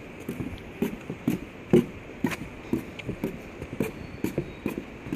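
Footsteps of people walking along a trail, an even series of short knocks about two a second.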